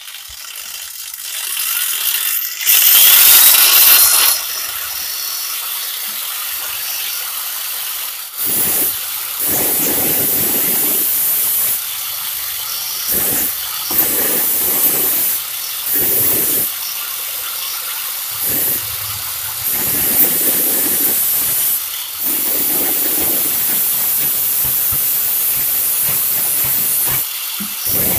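Electric angle grinder switched on and spinning up with a rising whine, then grinding the steel of a kerambit blade in repeated passes of a second or two, the grinding noise swelling as the disc bites and easing back to a steady high hiss between passes. It is putting a sharp edge on the blade's blunt upper tip.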